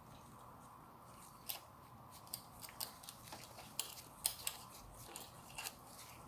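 A string of irregular sharp clicks and light taps, starting about a second and a half in and scattered over the next four seconds, the loudest a little past the middle.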